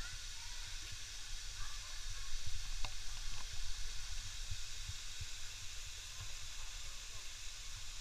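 Steady hiss of a waterfall and the rocky stream below it, water rushing without a break.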